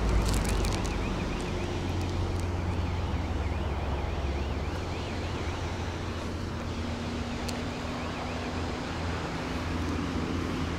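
Wind rumbling on the microphone over distant city traffic, with a far-off siren warbling rapidly up and down for the first few seconds. A few crinkles from a woven plastic sack being handled come near the start.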